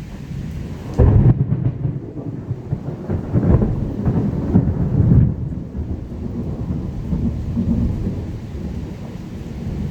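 Thunder rolling over steady rain: a deep rumble that starts suddenly about a second in, swells twice more in the middle and then eases into a lower, continuing roll.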